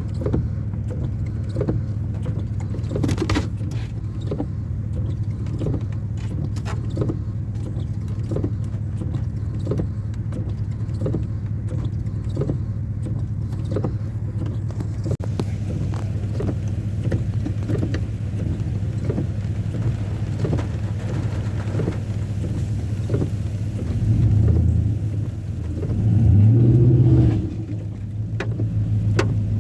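An engine running steadily with a low hum, with regular light clicks about every half second through the first half and two louder low rumbles near the end.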